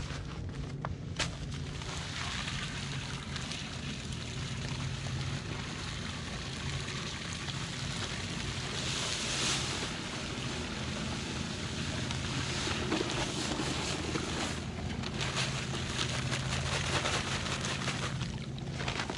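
Dry cement mix pouring out of a paper bag into a water-filled PVC piling form: a rushing hiss of powder and rustling paper, heaviest around the middle and again near the end, over a steady low hum.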